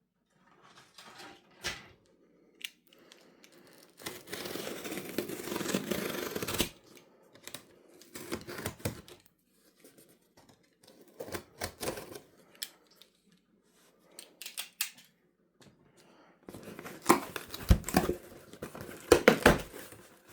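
Cardboard delivery box being opened by hand: tape and cardboard tearing, scraping and rustling in irregular bursts, with a long tearing stretch about four seconds in and louder handling near the end.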